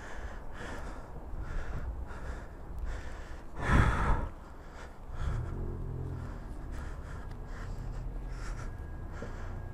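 Footsteps on concrete, a soft scuff about every two-thirds of a second, picked up by a helmet-mounted microphone. A loud rush sounds briefly about four seconds in, and a low hum runs from about five seconds on.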